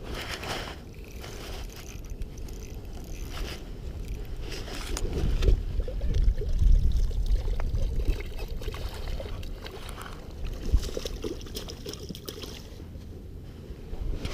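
Water splashing and trickling, with wind rumbling on the microphone, the rumble strongest around the middle.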